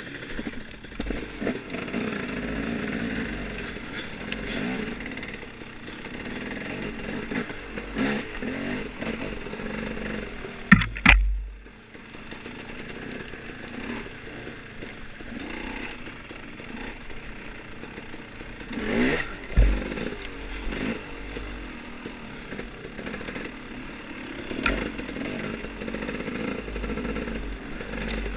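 Off-road dirt bike engine running and revving up and down on a woods trail, with clattering of the bike over rough ground. A sharp loud knock comes about eleven seconds in, and the engine surges loudly again near twenty seconds.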